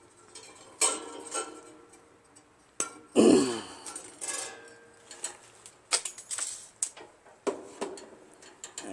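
Scattered metallic clicks and clinks of hand tools and a lawn tractor choke cable being handled, with one louder, longer scrape about three seconds in.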